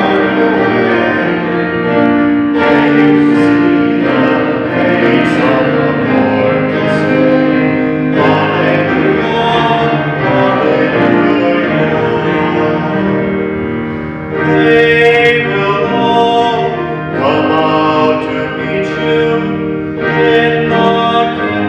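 A hymn sung with keyboard accompaniment, the farewell song of the final commendation at a Catholic funeral.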